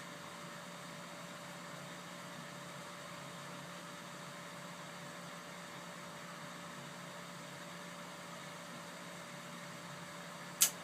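Weil-McLain GV-3 gas boiler's combustion-air blower running with a steady hum as the boiler waits to light, then one sharp click near the end as the ignition step comes in. The boiler has been failing to stay lit on its ignition tries.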